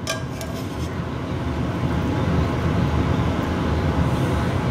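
Potatoes frying in a skillet, a steady sizzle that grows a little louder, with a few quick scrapes and clicks of a metal spatula on the pan right at the start.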